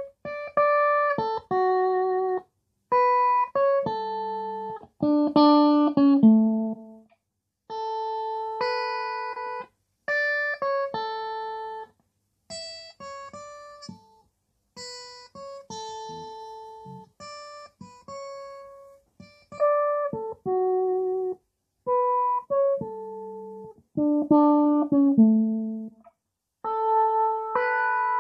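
Electric guitar played through a Boss MS-3 multi-effects switcher, demonstrating one of its built-in effects: short phrases of single notes and double stops, each cut off abruptly with brief silences between. The middle stretch is quieter and brighter.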